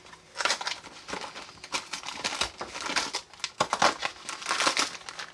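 Thin cardboard snack box being torn open and its flaps folded back by hand: irregular crinkling and crackling of paperboard throughout.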